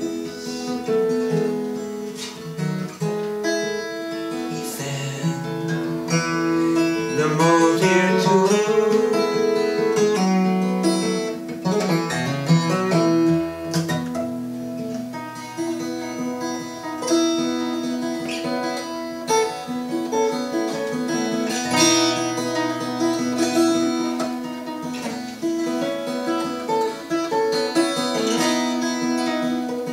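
Solo acoustic guitar playing an instrumental passage of plucked melody notes over held low bass notes.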